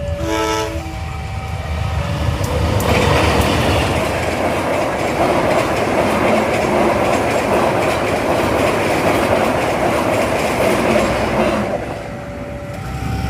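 A train passes over the level crossing, its wheels clattering loudly for about ten seconds after a short horn blast at the start. The crossing's electronic warning siren alternates between two notes before the train arrives and comes back near the end as the train clears.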